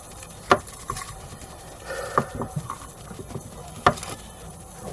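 Crunchy homemade play dough with rice mixed in being squeezed and handled, giving soft crackling with a few sharp clicks and taps; the two loudest come about half a second in and just before the four-second mark.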